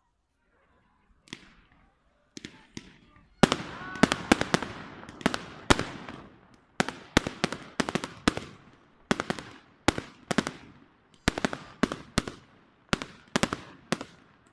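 Fireworks display: aerial shells bursting, with a few separate sharp bangs at first and then, from about three and a half seconds in, a rapid barrage of two or three bangs a second, each trailing off in echo.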